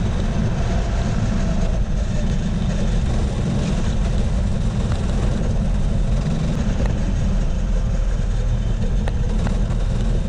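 Kart engine running steadily on a slow lap after the chequered flag, heard from a camera mounted on the kart, with a heavy, even low rumble.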